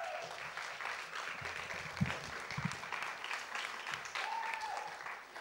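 Audience applauding, a dense steady patter of clapping that eases off near the end.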